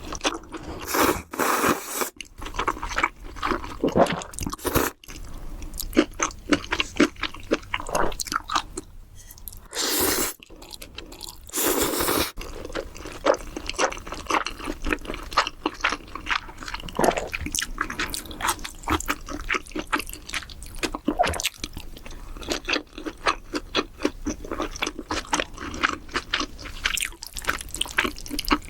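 Close-miked mukbang eating sounds: wet chewing and crunching with many small mouth clicks and smacks, and two longer noisy bursts about ten and twelve seconds in.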